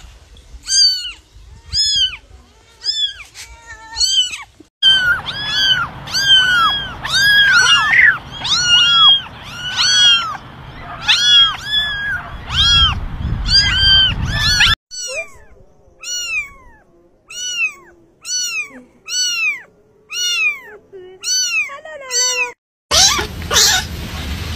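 Kittens mewing over and over in short, high, arched cries, about two a second, across several spliced clips. Near the end the mews give way to a loud, noisy stretch.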